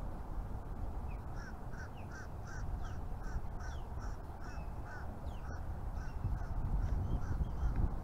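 A bird calling in a quick series of short, evenly spaced notes, about three a second, fading out after several seconds, over a steady low rumble.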